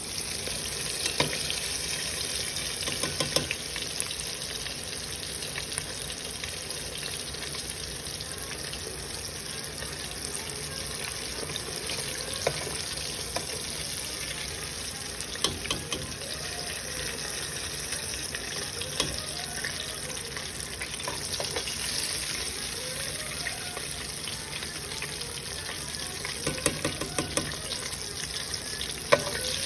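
Small whole bream frying in a shallow pan of hot grease: a steady sizzle with scattered sharp pops and clicks. The sizzle is slowing down, which the cook takes as the sign that the fish are done.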